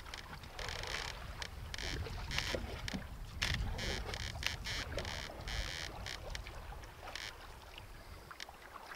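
Water splashing and lapping against a paddled canoe in irregular bursts about once a second, over a low wind rumble on the microphone.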